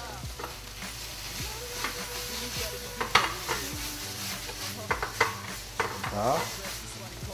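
Strips of pork, bell pepper and onion sizzling in a frying pan over a gas flame as the stir-fry is tossed and stirred. Several sharp knocks of pan and utensil come from about three seconds in and toward the end.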